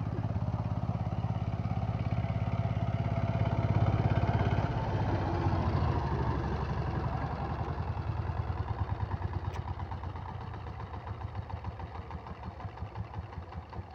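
Two-wheel power tiller's single-cylinder diesel engine running under load through wet paddy mud, then throttling down over the later seconds to a slow idle, its separate firing beats becoming distinct and slower. A single sharp click about two-thirds of the way in.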